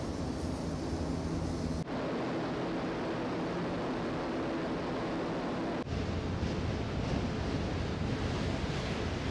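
Ferry at sea: a steady rush of wind and water with a low engine hum underneath. The hum and noise change abruptly twice, about two and six seconds in, where separate takes are cut together.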